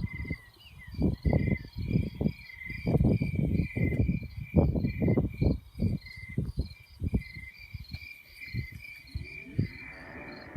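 Crickets chirping in a steady, even rhythm of about two chirps a second, over louder irregular low rumbles and thumps.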